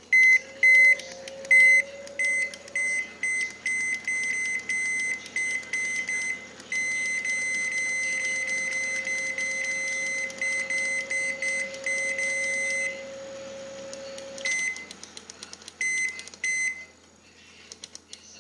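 Microwave oven control-panel beeper sounding a run of short beeps at uneven spacing, then one long beep of about six seconds, then a few more short beeps.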